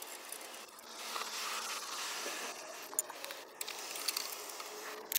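A few faint, light clicks of metal suspension parts and fasteners being handled and fitted by hand, over a steady background hiss.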